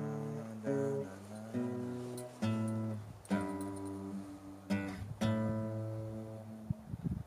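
Nylon-string classical guitar strummed, a run of chords about a second apart, the closing chords of a song. The last chord rings out for over a second and fades away about a second before the end.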